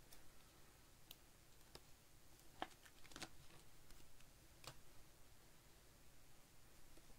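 Faint, scattered clicks and taps of baseball trading cards being handled and sorted onto stacks, the sharpest a little over two and a half seconds in and just after three seconds.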